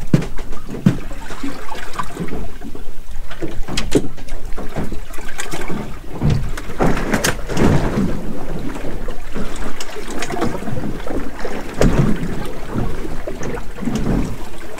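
Wind buffeting the microphone and choppy sea slapping against the hull of a small drifting boat, in uneven swells with occasional knocks.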